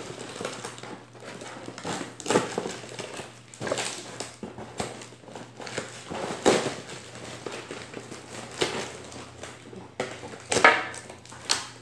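Parcel packaging rustling and crinkling as it is handled and opened by hand. Irregular rustles with several sharper crackles.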